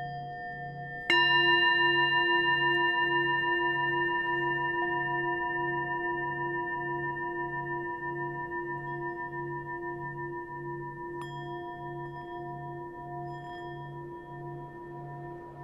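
Ambient background music of bell-like ringing tones: one is struck about a second in and slowly fades, and another higher tone enters near eleven seconds, over a low tone pulsing about one and a half times a second.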